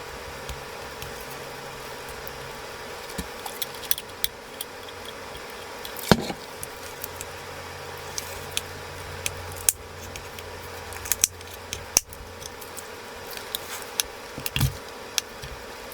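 Irregular small clicks and taps of hand repair tools working on a smartphone's opened casing, with a louder knock about six seconds in and a few more sharp clicks later. A faint steady hum runs underneath.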